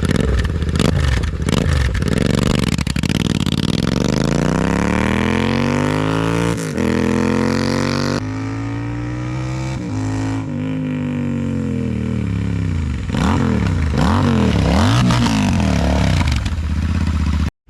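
Royal Enfield Continental GT 650's 648 cc parallel-twin running loud on bare straight header pipes with the stock silencers removed. The engine speed climbs and falls slowly, then is blipped up and down several times in quick succession near the end.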